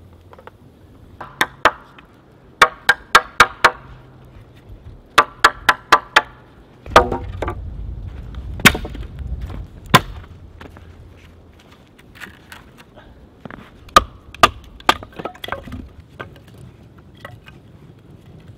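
Cross-batoning with a bushcraft knife: sharp wooden knocks in quick runs of two to five, about four a second, as a wooden baton strikes the knife's spine to drive it across the grain of a stick. In the middle comes a longer crunching stretch with two loud cracks as the stick breaks, then a few more scattered knocks.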